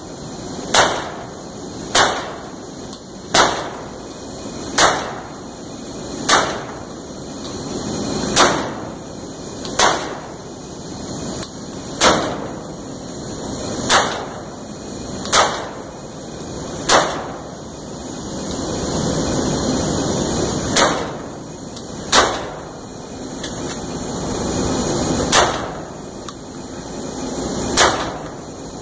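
8-gauge industrial kiln shotgun firing repeatedly into a hot kiln to blast off build-up rings, a sharp bang about every one and a half to two seconds, with a pause of about four seconds just past the middle. A steady rushing noise fills the gaps between shots.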